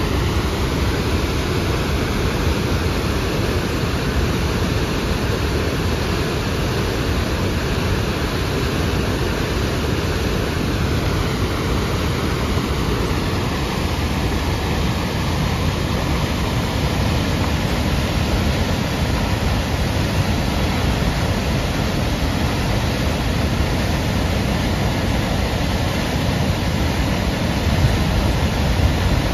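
Upper Tahquamenon Falls, a wide river waterfall, pouring over its ledge: a steady, deep rush of falling water.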